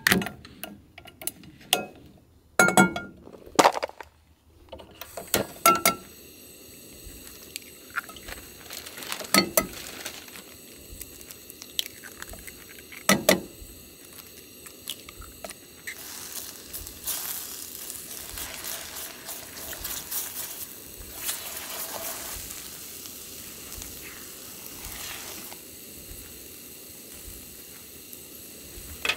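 Eggs being cooked in a frying pan on a camp stove: a few sharp clinks and knocks of the pan and utensils over the first dozen seconds, then a steady hiss with sizzling and stirring in the pan, busiest in the middle stretch.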